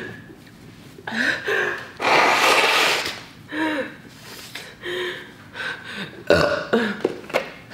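A woman burping and making strained, whimpering vocal noises in short separate bursts, in distress from the burn of extremely spicy fire noodles, with a longer breathy rush about two seconds in.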